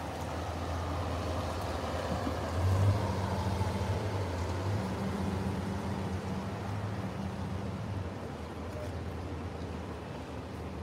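Ambulance driving slowly past close by, its engine running with a low steady hum that swells briefly about three seconds in; no siren is sounding.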